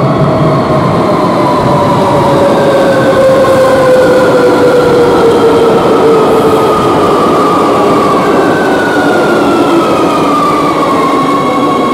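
Madrid Metro train running loud, its electric traction motors whining in several pitches that keep falling as it slows, over a steady rumble of wheels on rail.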